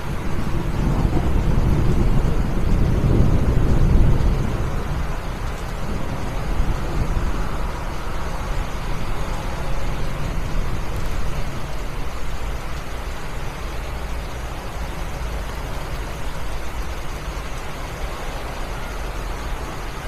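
Steady rain falling, mixed with a low rumble of road traffic that swells for a few seconds near the start and then settles back.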